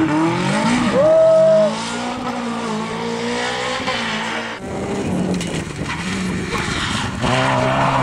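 Two small front-wheel-drive rally cars revving hard one after the other on a gravel stage, engine pitch rising and falling as each slides through a bend on loose gravel. A Renault Clio comes first; after a sudden cut a little past halfway, a Peugeot 106 follows.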